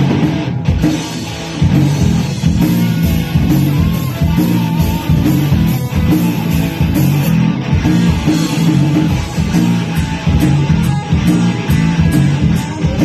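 Rock band playing live: loud electric guitar and drum kit pounding out a fast, steady rhythm.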